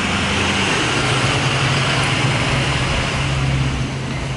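Steady mechanical hum, a low drone with an even hiss above it, whose pitch steps down slightly about a second in.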